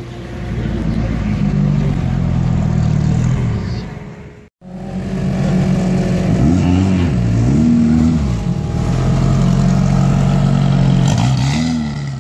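Engine of a VW Beetle-based Bugster off-road buggy revving as it pulls away on dirt. The revs rise and fall several times. The sound cuts out suddenly for a moment about four and a half seconds in.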